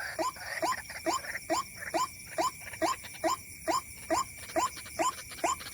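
White-breasted waterhen (ruak-ruak) call: a short rising 'kruak' note repeated very evenly, about two and a half times a second, the bird-catchers' lure call. A faint steady high tone runs beneath it.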